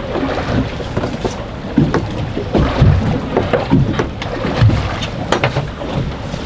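Heavy wind buffeting the microphone aboard an anchored fishing boat, with irregular low thumps and scattered knocks throughout.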